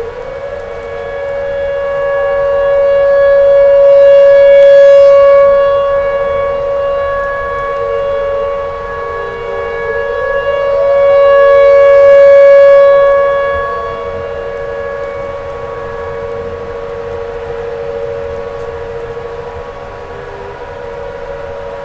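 Outdoor tornado warning siren sounding a steady wail, swelling louder and fading back twice, about eight seconds apart.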